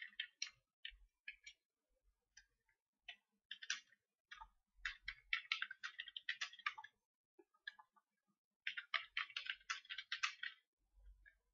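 Computer keyboard typing: several quick runs of keystrokes with short pauses between them.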